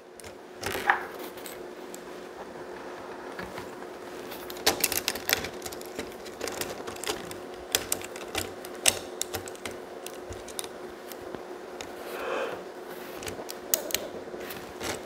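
Small plastic LEGO pieces clicking and tapping as they are handled and pressed together on a toy tractor: irregular sharp clicks, a few at a time, over a faint steady hum.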